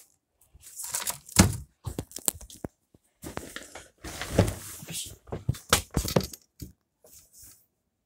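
Handling noise of a phone held close to its microphone: irregular rubbing, scraping and crackling with sharp knocks, the loudest about one and a half, four and a half and six seconds in.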